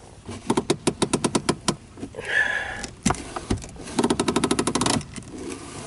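Hand e-brake lever in a Jeep Cherokee XJ center console ratcheting: a run of clicks as it is pulled up, a short scraping release about two seconds in, then a faster run of clicks as it is pulled up again.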